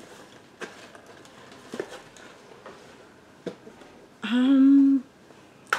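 A few faint clicks of small items being handled, then a woman's short, steady hum ('mmm') held for under a second near the end.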